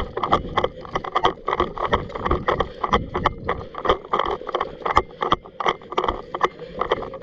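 Quick, uneven footsteps with the rustle and knock of clothing and gear as a player moves on foot, about three to five sharp strokes a second.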